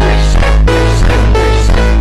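Loud electronic music with heavy bass and a steady, repeating beat.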